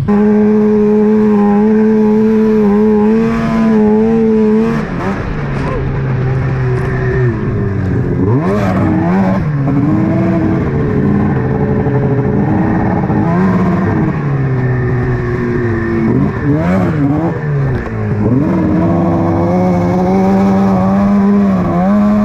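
Arctic Cat snowmobile engine running while riding through snow. It holds a steady pitch, then drops and climbs again several times as the throttle is eased off and opened back up.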